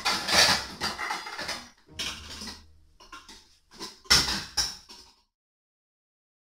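Stainless steel pots and pans clattering and knocking together as they are lifted out of a kitchen drawer and set on the stovetop. There is a run of knocks, and they stop about five seconds in.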